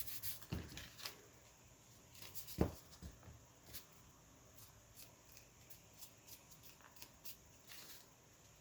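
Faint rustling and light taps of paper pages being handled, with one louder soft thump about two and a half seconds in.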